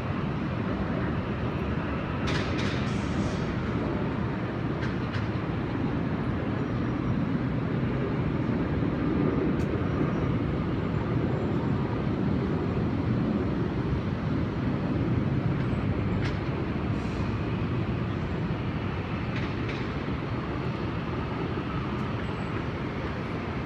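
Steady low rumble of city ambience, with a few faint clicks.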